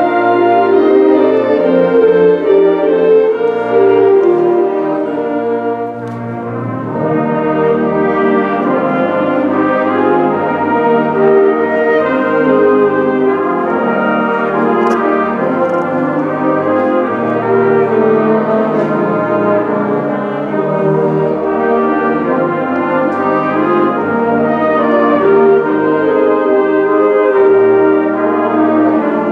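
Student concert band playing a slow ballad: sustained, layered wind and brass chords, with French horns and trombones prominent. The music drops back briefly about six seconds in, then swells again.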